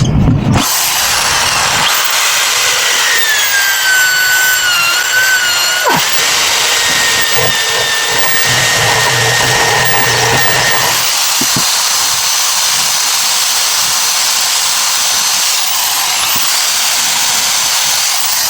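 A handheld power tool running on PVC pipe: a loud, steady motor whine over a rough hiss. The whine sags in pitch a few seconds in as the tool takes load, then runs steady again.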